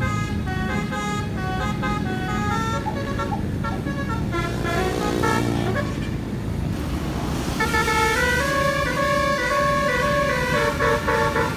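Basuri telolet multi-tone air horn playing a tune of quick stepped notes, with a gliding pitch sweep about halfway through before the melody resumes.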